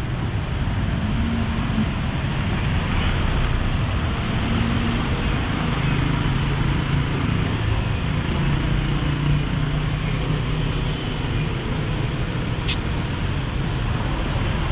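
Steady street traffic: motor-vehicle engines running at a low hum under a constant wash of road noise, with a single sharp click near the end.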